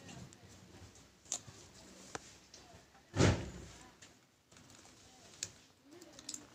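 Hot glue gun being used on a corrugated cardboard strip: a few light clicks and one dull thump about three seconds in.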